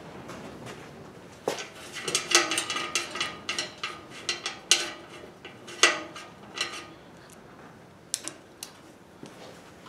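Metal clinks and clanks from the steel auger assembly and side housing of a Honda HSS1332 snowblower being handled by gloved hands. Several knocks ring briefly, and a couple of lighter clicks come near the end.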